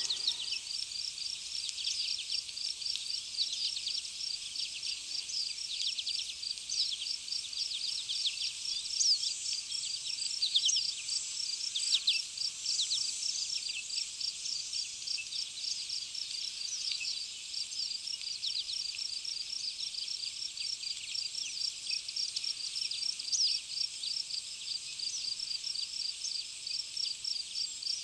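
Songbirds chirping with many quick, downward-sweeping notes over a steady, rapidly pulsing high trill from an insect such as a cricket.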